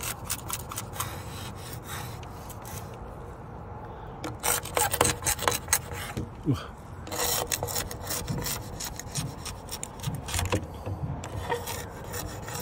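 Metal window scraper blade scraping overspray paint flecks off window glass in quick repeated short strokes that come in spells, the paint coming off the glass.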